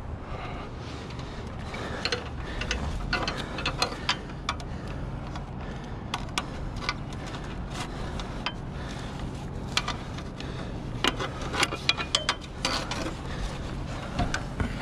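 Irregular metallic clicks, clinks and knocks as a firefighter's gloved hands, clip and harness hardware bump against the rungs and rails of a fire truck's aerial ladder, over a steady low hum.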